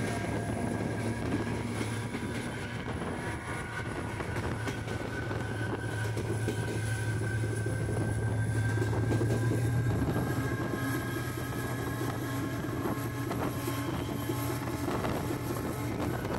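EMD GT22 diesel locomotive running along the line, heard from its own cab: the steady low drone of its two-stroke diesel engine together with wheel and rail noise, swelling a little louder about halfway through and then easing.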